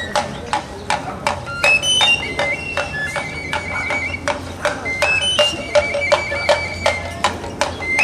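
Voladores pipe-and-drum music, a small reed flute and a small hand drum played together by the man atop the pole. A high, shrill flute melody of short held notes steps up and down over quick drum taps, about three a second.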